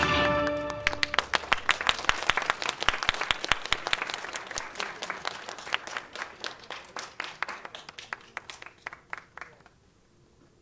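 A song's final chord cuts off just after the start. Then an audience claps, the claps thinning out and dying away after about nine seconds.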